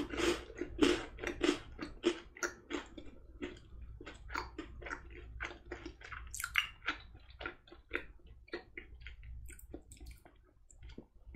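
Close-miked chewing of a mouthful of crunchy chocolate, lips closed, with crisp crunches packed densely at first and growing sparser and softer toward the end.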